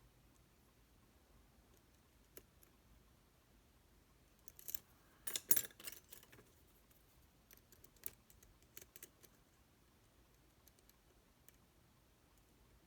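Small metallic clicks and rattles of lock picks working in a Zeiss Ikon SK6 lock's keyway, with a burst of rattling about five seconds in and a few more scattered clicks after it.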